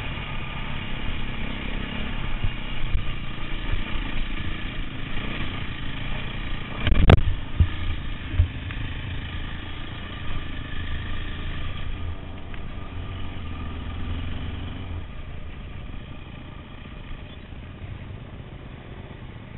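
Dirt bike engine running as the bike rides along a trail, with one loud sharp knock about seven seconds in. The engine gets quieter over the last few seconds as the bike slows.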